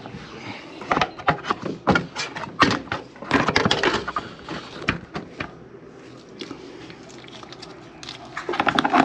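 Handling noise: a run of knocks, clicks and clatters from hands and tools working around the coil cabinet, with a quieter stretch of a few seconds before more clicks near the end.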